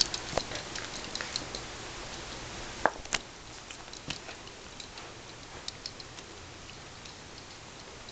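Dogs playing with plush and rope toys: scattered light clicks and taps, the two sharpest about three seconds in.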